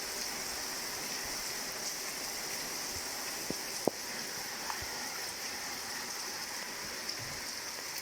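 Steady rain falling, with a few louder single drops striking close by, the sharpest just under four seconds in.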